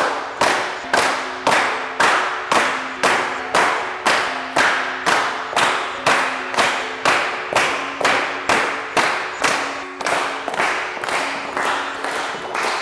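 A group of people clapping in unison in a steady rhythm, about two claps a second, over a few steady held musical notes.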